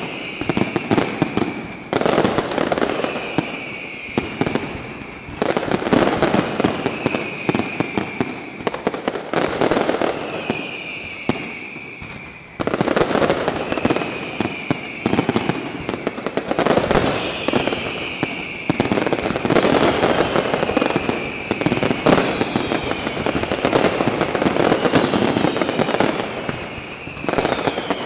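Fireworks display: dense volleys of bangs and crackle, one on top of the other. A whistling tone that dips slightly in pitch recurs about every two seconds.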